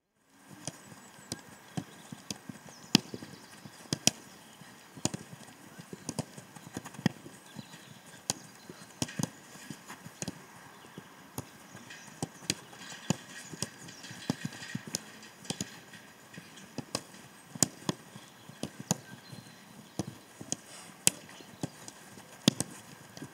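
Footballs being struck in a control-and-pass drill: a steady string of sharp, irregular kicks, about one or two a second, some much louder than others.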